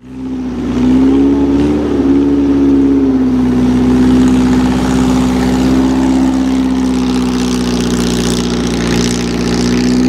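A car engine running close by. It comes in suddenly, its pitch wavers a little for the first few seconds, then it runs at a steady pitch.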